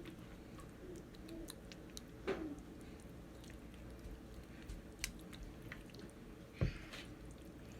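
Marinated chicken tikka pieces being laid by hand onto an oiled metal grill rack: faint wet squishing and light clicks, with a knock about two seconds in and a louder thump near the end.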